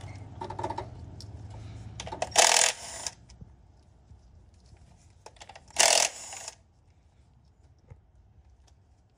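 Cordless impact driver backing out 10 mm bolts on a Honda D17 engine's coil-pack cover, running in two short bursts about three seconds apart, followed by a few light clicks of bolts and tool being handled.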